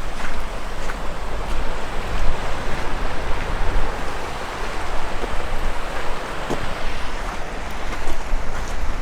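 Steady rush of sea surf, with wind buffeting the microphone in a low rumble.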